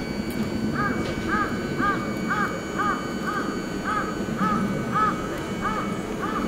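A crow cawing over and over, about a dozen short arched caws evenly spaced around two a second, over a steady low background noise.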